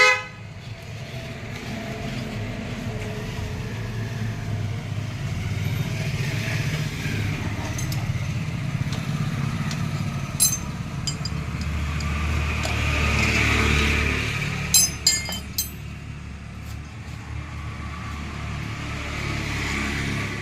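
Steady road traffic running by, with a vehicle passing louder about twelve to fourteen seconds in. A few short sharp clicks and clinks stand out above it, near the middle and again a little later.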